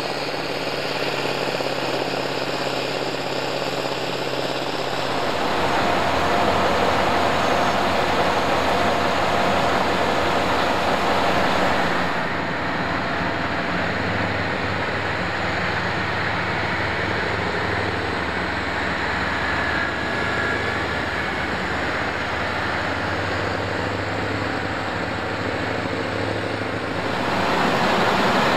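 Giant self-propelled snow blower running hard and throwing snow: a heavy, steady engine and rotor din. Its character shifts sharply about five and twelve seconds in and again near the end.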